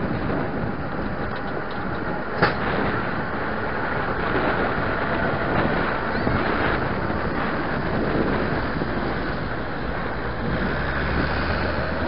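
Narrow-gauge diesel locomotives setting off and moving slowly past, engines running steadily, with one sharp knock about two and a half seconds in.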